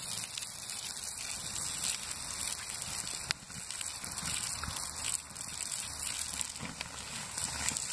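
Water-soaked embers of a burned-out tree stump hissing and sizzling as steam rises, with a single sharp pop a little over three seconds in.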